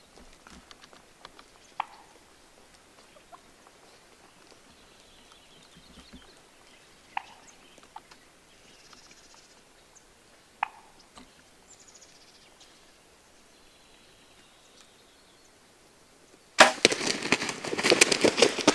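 Gould's wild turkey toms fighting at a water hole: a sudden loud flurry of rapid wingbeats starts near the end. Before that there are only a few single short, sharp calls, falling in pitch.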